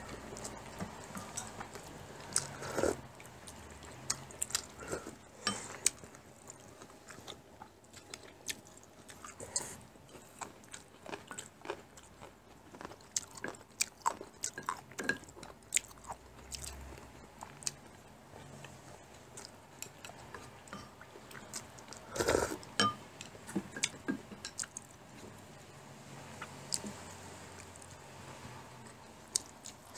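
Two people eating japchae glass noodles: close-up chewing and mouth sounds, with scattered short clicks of chopsticks and spoons against porcelain bowls and plates. One louder burst of noise comes about three-quarters of the way through.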